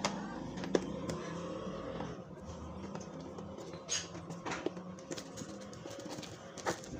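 Plastic food tub's lid pressed on with a few sharp clicks, then the tub handled and shaken, the fish knocking inside as they are coated in breading mix, over a low steady hum.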